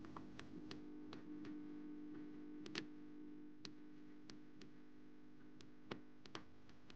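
Faint restaurant room tone: a steady low hum with scattered, irregular light clicks and ticks, a couple of them louder, about three and six seconds in.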